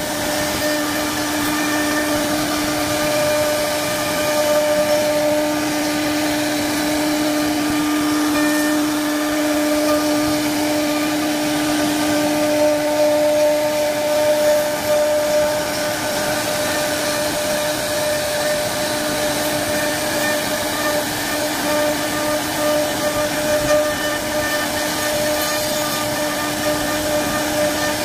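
CNC wood-carving router running: a steady spindle whine over the rough noise of the bit cutting wood. The whine weakens for a few seconds midway, then comes back.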